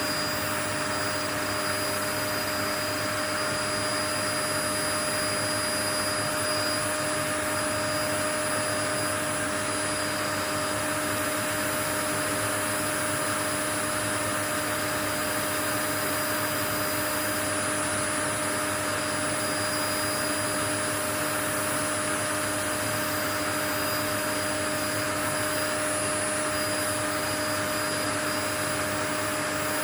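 Steady, unbroken whooshing noise with a constant motor hum of several fixed tones over it, like a running household appliance, played as white noise to lull a baby to sleep.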